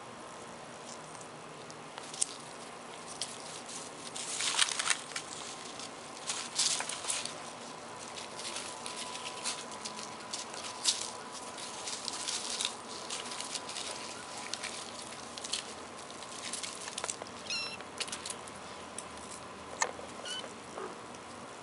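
Kittens scampering and pouncing through dry leaves on concrete: scattered light crackling and pattering rustles, busiest about a quarter of the way in, over a faint steady high hum.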